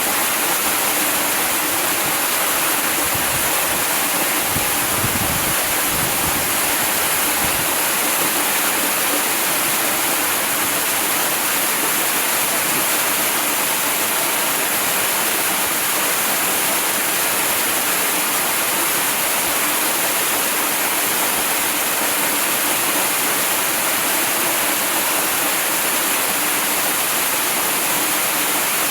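Waterfall rushing, a steady, loud hiss of falling water, with some low rumbling in the first several seconds.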